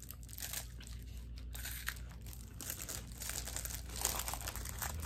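Plastic snack wrapper crinkling irregularly around a chocolate-coated wafer bar as it is handled, with crunching as the wafer is bitten and chewed.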